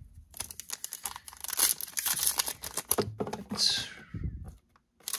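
Crinkly plastic wrapper of a trading card pack being handled and torn open: a dense crackling for about three seconds, then one short tear falling in pitch, and a small click near the end.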